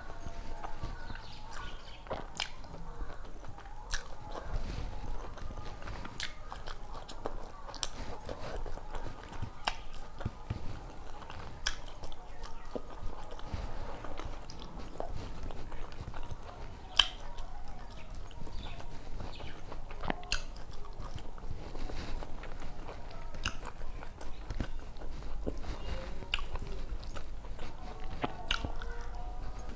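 Close-up chewing and mouth sounds of a person eating rice and vegetable curries by hand, with many scattered sharp clicks throughout.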